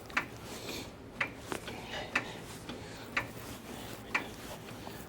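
A car jack being pumped to lift the front of the car, with a sharp click about once a second on each stroke.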